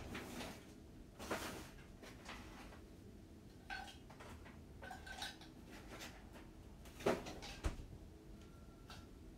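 Dishes clattering and clinking: a string of irregular knocks, two of them with a short ringing clink, the loudest knocks about seven seconds in.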